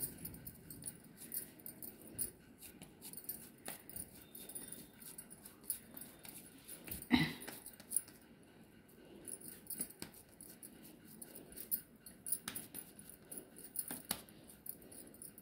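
Faint soft sounds of hands pressing and patting minced mutton into a kabab patty, with light scattered clicks and jingles such as glass bangles make; one short louder sound about seven seconds in.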